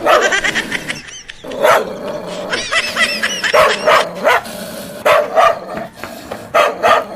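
A dog barking sound effect, standing in for the toy dog: a string of loud barks, with a run of high, arching yelps and whines about three seconds in.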